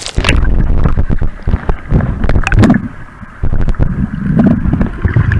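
Muffled sloshing and gurgling of shallow sea water heard from a camera held just under the surface, with a splash as it goes in at the start and many clicks and knocks from handling. A loud, uneven low rumble that surges and falls.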